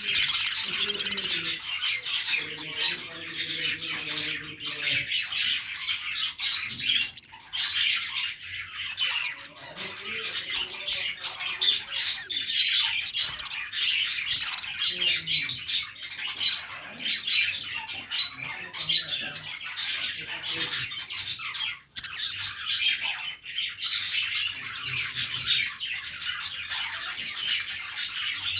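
Pet budgerigars chattering nonstop, a dense mix of fast high chirps, warbles and squawks. The chatter breaks off for a moment about 22 seconds in.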